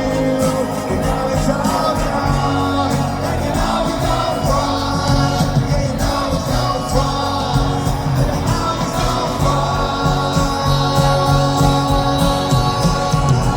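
Live rock band performance with singing, heard loud and continuous.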